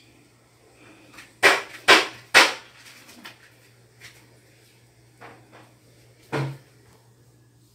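Moringa leaves being stripped by hand from their twigs over a plastic basin, rustling and knocking: three loud rustles in quick succession about a second and a half in, softer ones after, and another sharp knock about six seconds in.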